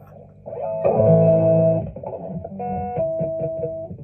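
Electric guitar playing chords through a distortion effect: a chord rings out about a second in, then shorter, choppy chords near the end.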